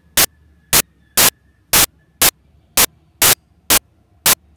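Bursts of static hiss, about two a second, each a fraction of a second long and cutting off sharply, with near silence between them.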